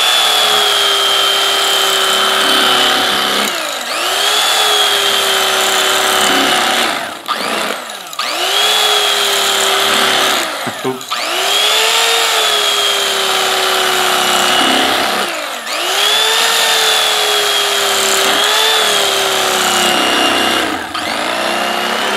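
Electric carving knife motor running in five bursts of a few seconds each, slicing a roast. Each burst rises in pitch as it starts, then holds a steady whine that sags slightly as the blades work through the meat.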